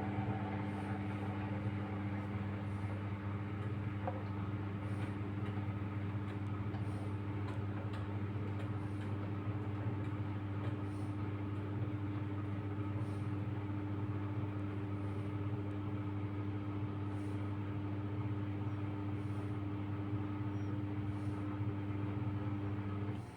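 Samsung WW90K4433YW front-loading washing machine running with a steady low motor hum. The hum cuts off abruptly at the very end.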